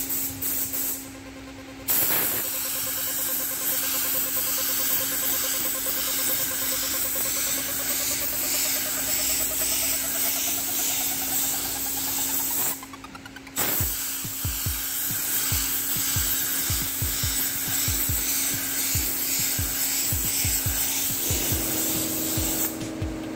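Gravity-feed paint spray gun hissing steadily as it sprays clear coat. The air cuts off twice when the trigger is released, about a second in and about halfway through.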